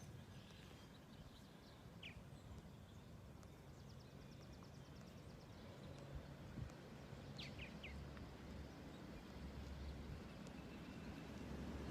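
Faint outdoor ambience with a few short bird chirps and a brief rapid trill. A low rumble grows near the end.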